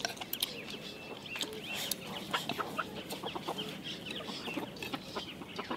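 Chickens clucking on and off, mixed with small clicks of chopsticks against a bowl.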